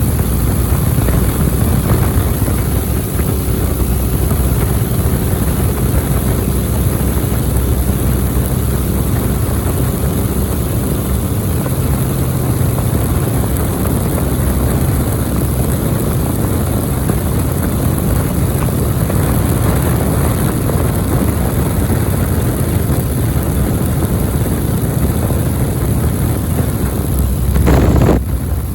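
Biplane's piston engine and propeller running steadily, heard loud from inside the open cockpit with wind rush. Near the end it briefly gets louder and rises in pitch, then drops off suddenly.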